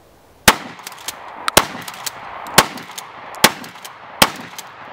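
12-gauge Remington 870-clone pump-action shotgun fired five times in quick succession, about one shot a second, starting half a second in, with the slide worked between shots.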